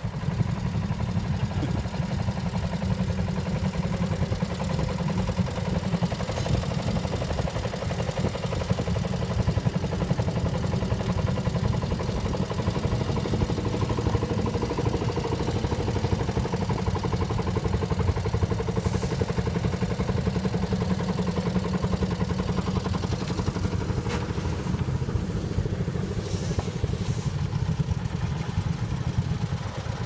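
Engine of a vintage two-wheeled walking tractor running steadily under load as it pulls a plough through the soil.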